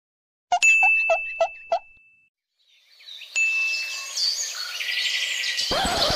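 Edited-in sound effects: a sudden bell-like ding with a held high tone and five quick pips, then, after a second of silence, a busy chirping, chime-like effect with bird-like calls.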